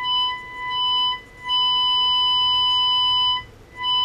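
Transistor radio's speaker sounding a steady whistling tone: the signal generator's modulated 455 kHz carrier is being picked up and demodulated. It cuts out briefly three times as the lead moves near the IF section. The tone shows the IF and audio stages are passing signal.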